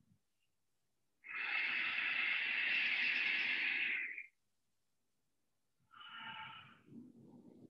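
Ujjayi (victorious) breathing: a long, audible hissing breath drawn through a narrowed throat, lasting about three seconds from about a second in, then a shorter, softer breath near the end.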